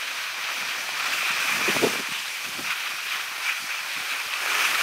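Steady rushing hiss of sliding over groomed snow on a downhill run, mixed with wind on the microphone.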